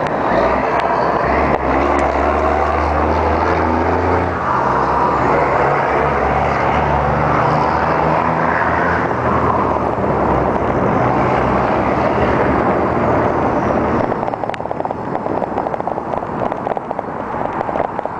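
Road traffic heard from a moving bicycle, under a steady rush of wind on the microphone. A vehicle engine drones low from about a second in until about ten seconds in, and near the end the rush turns choppier.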